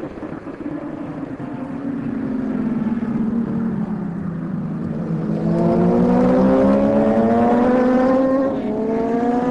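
Racing superbike engine on track, its pitch sagging slightly and then climbing steadily as the bike accelerates out of a corner, dropping briefly near the end for an upshift before climbing again.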